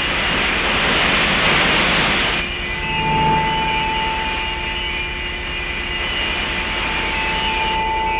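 Electronic backing soundtrack: a loud hissing wash that cuts off sharply about two and a half seconds in, then a steady high electronic tone that holds.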